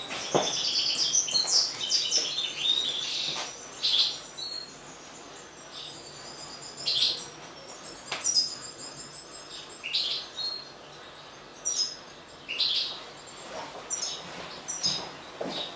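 European goldfinch twittering and calling: a dense run of bright chirps for the first three seconds or so, then short separate calls every second or two.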